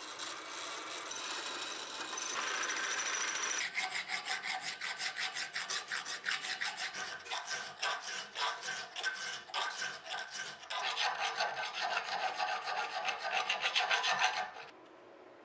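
Drill press boring through a metal hammer head for the first few seconds, with a thin high squeal from the bit just before it stops. Then a round file rasping back and forth inside the drilled handle hole, in quick, even strokes that stop abruptly near the end.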